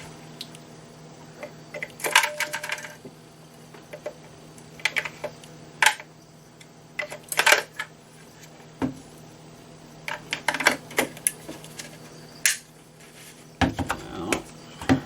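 Small hard plastic parts being handled, clicking and rattling in irregular clusters, over a faint steady hum.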